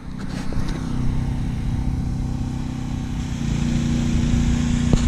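A motor engine idling steadily close by, its pitch shifting slightly about three and a half seconds in.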